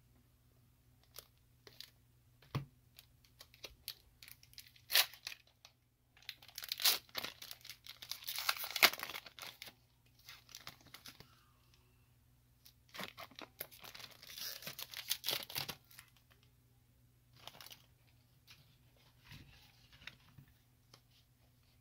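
A foil Pokémon booster pack being torn open and crinkled by hand. Two dense bouts of rustling, about six seconds in and again around thirteen seconds in, are set among lighter scattered crackles.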